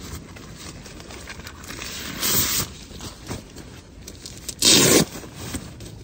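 Nylon stuff sack and rolled sleeping mat rustling and scraping as the mat is pulled out of the sack and handled, with two louder swishes about two seconds in and just before five seconds in.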